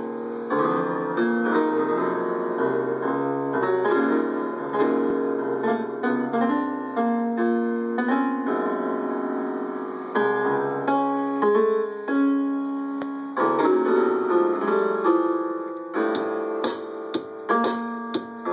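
Electronic keyboard sounding as a cat's body presses down the keys: clusters of many notes held together, shifting at irregular moments as the cat lies and moves on them. Near the end, shorter separate notes struck sharply as the cat stands and steps across the keys.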